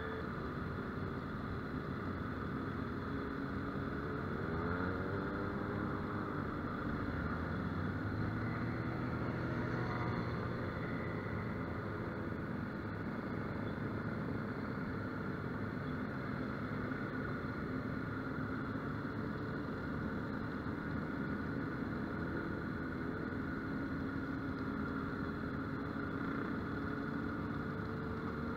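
Yamaha XTZ 250 Ténéré's single-cylinder engine running at low road speed, its pitch rising about four to five seconds in as the throttle opens, then holding steady, with wind noise on the microphone.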